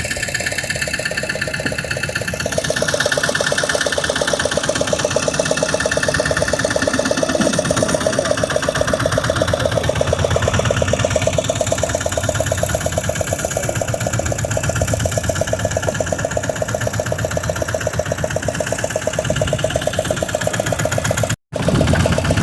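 Fishing boat engine running steadily with a fast, even firing rhythm, briefly cutting out for an instant near the end.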